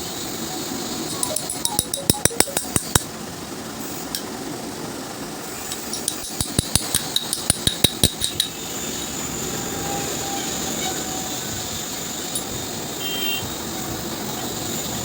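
Quick, light metal-on-metal tapping at the front brake caliper of a Bajaj Pulsar RS200 while new brake pads are fitted. There are two runs of about ten taps each, at roughly five a second, each tap with a short bright ring.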